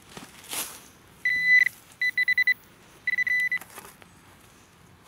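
Metal detector beeping at a target in the dig hole: a high steady tone sounds once about a second in, then as a quick run of short pulses, then once more. Soft scraping of loose soil comes between the beeps.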